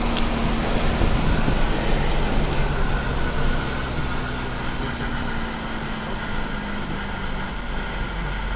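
Car engine and tyre noise heard from inside the cabin while driving on a wet road: a steady low rumble with a faint hiss, and a brief click right at the start.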